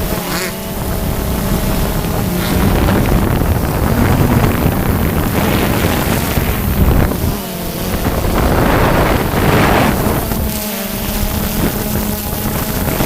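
Quadcopter motors and propellers buzzing steadily while wind buffets the microphone in gusts.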